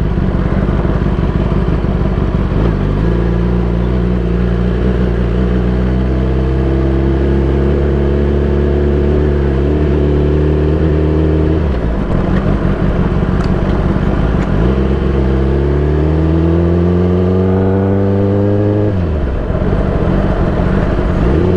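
Kawasaki ZX-10R inline-four sportbike engine and exhaust under way. The engine note climbs slowly as the bike accelerates, drops back sharply about halfway through, then climbs again and falls once more near the end.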